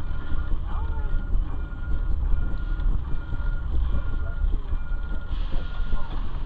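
Low rumble of the Delmar Loop streetcar, heard from on board, with a short electronic beep repeating about every 0.7 s that stops about six seconds in.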